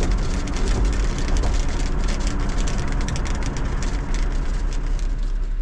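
Road and wind noise inside a moving Jeep, a steady low rumble with a dense, irregular crackle of clicks and buffeting from the wind.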